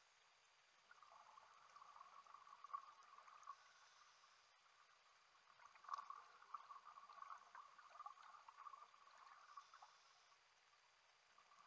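Faint underwater sound of a scuba diver breathing: bubbling exhalations from the regulator, two spells of a few seconds each, with a short hiss between them.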